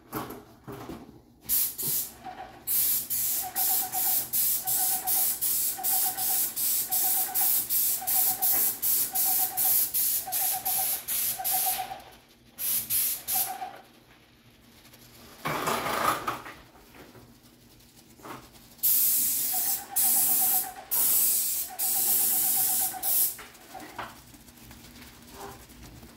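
Paint spray gun hissing as it sprays paint onto the soffit, in rapid even pulses for about ten seconds, with a faint pulsing tone under the hiss. It stops, gives a short burst, then sprays again for a few seconds near the end.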